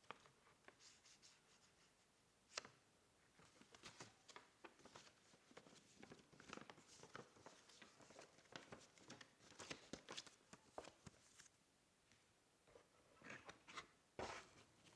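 Faint, irregular light clicks and rustles of a gaming keyboard and its packaging being handled, with one sharper click about two and a half seconds in and a short lull near the end.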